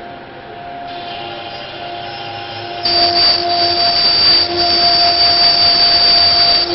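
Two-spindle CNC wood router at work: both spindles whining steadily while their bits rout the wooden panels with a rasping cutting noise. About three seconds in it gets suddenly louder, with a high whine added.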